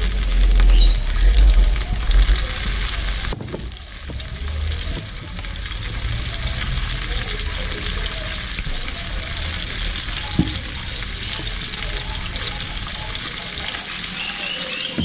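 Flour-dusted whole fish sizzling steadily as they shallow-fry in a little oil in a pan. Low thumps come in the first three seconds, and there is one sharp tick about ten seconds in.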